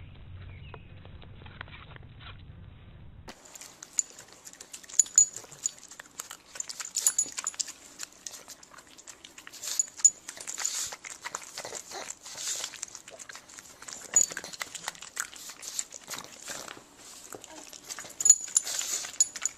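A dog making short, sharp sounds now and then, mixed with clicks and knocks. The sound changes about three seconds in, from a muffled recording with a low hum to a clearer one.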